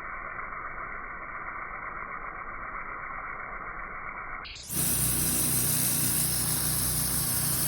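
A gas pressure washer's engine runs steadily. About four and a half seconds in, a dull, muffled version of the noise cuts suddenly to a louder, clear engine drone with a strong hiss from the high-pressure water spray.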